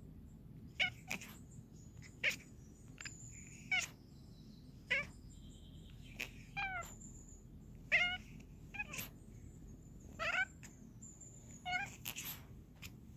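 Scottish Fold cat chattering: about ten short bursts of quick clicking chirps, a second or so apart, some chirps falling in pitch, the excited chatter of a cat fixed on birds it can't reach.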